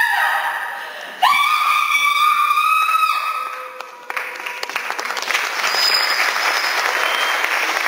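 A woman's long, high-pitched cry held for about two seconds, then audience applause breaking out about four seconds in.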